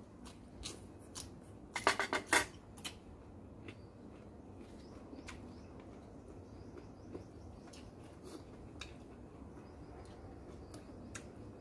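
Spoon clinking against a plate while eating: scattered sharp clicks, with a quick run of louder clinks about two seconds in and single ticks after.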